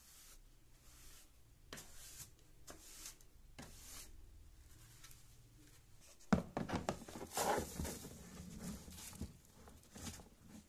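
A wide paint brush making soft, brief sweeping strokes across a wooden stair tread into a plastic dustpan. About six seconds in, a sharp plastic knock, then a few seconds of louder rustling and tapping as the dustpan is emptied into a plastic trash bin.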